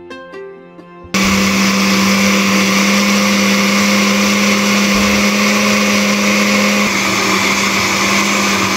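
Countertop blender switching on about a second in and running steadily at full speed, with a loud whirring motor hum as it purees fresh herbs, garlic and peppers in water into green seasoning.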